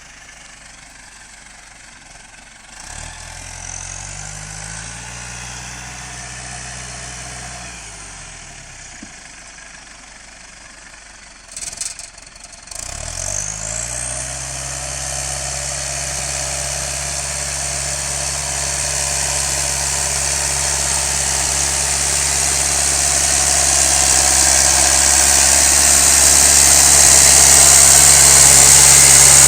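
John Deere 6210 tractor's diesel engine: it revs up about three seconds in, holds, and drops back, then after a brief clatter near the middle revs up again and runs steadily, growing louder toward the end.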